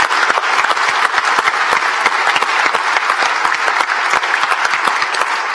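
Large audience of about 400 people applauding steadily, a dense patter of many hands clapping that echoes in a large hall.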